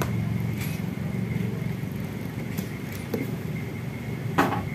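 Light metallic clicks of a valve guide and bolt being handled and set against a motorcycle cylinder head, with one sharper metal click near the end, over a steady low mechanical hum.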